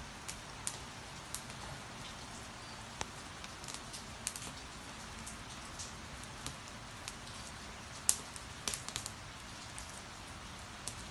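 Steady rain falling, with irregular sharp crackles and pops from a wood fire of dry branches burning in a fire bowl; a cluster of louder pops comes about eight to nine seconds in.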